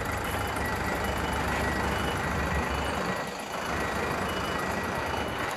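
A vehicle back-up alarm beeping at a steady rate over a low engine rumble on a ferry's car deck.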